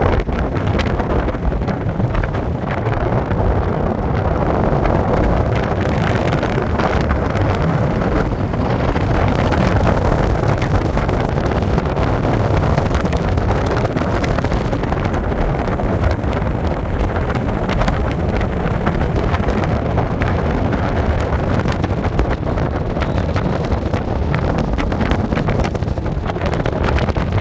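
A moving car's steady engine and road noise, with wind buffeting the microphone.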